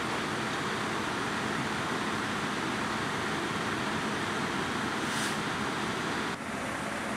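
Steady, even rushing noise of a fully involved house fire, the fire burning through the roof blending with the running fire apparatus. A short hiss about five seconds in, and the level drops slightly a second later.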